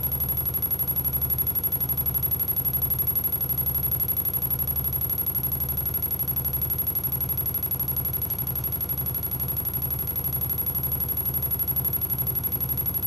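Live electronic noise music from an analogue electronics setup: a fast, even low throbbing pulse under a noisy haze, with a steady high-pitched whine held above it.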